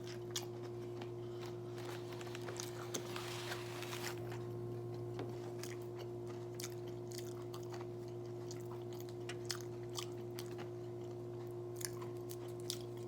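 A person chewing and biting food close to the microphone, with small scattered crunches and mouth clicks over a steady low electrical hum.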